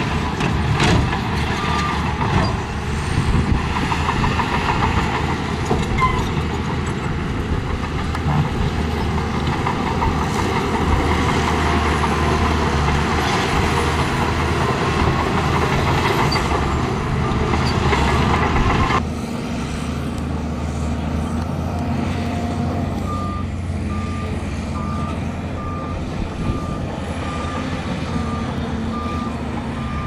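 Heavy earthmoving machinery, a bulldozer and dump trucks, working with their diesel engines running loud and steady. About two-thirds of the way through, the sound changes abruptly and a reversing alarm starts beeping steadily, a little more than once a second.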